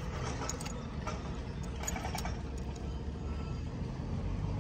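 Steady low rumble with a few light clicks and taps in the first two seconds or so, as the metal parts of a saildrive shaft housing are handled.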